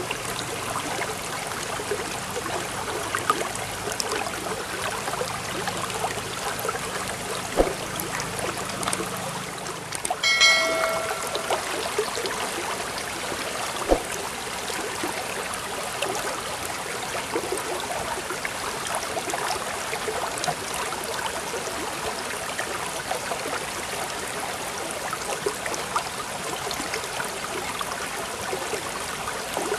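Steady flowing water, like a trickling stream, with a single chime ringing briefly about ten seconds in.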